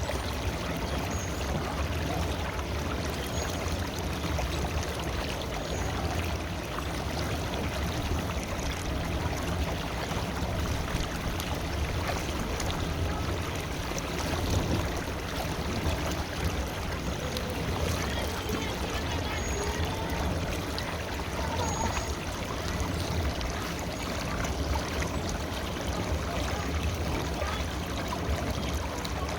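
River water flowing steadily, an even rushing with a strong low rumble.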